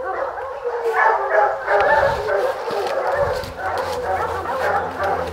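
A pack of bear hounds baying and barking together, many voices overlapping without a break.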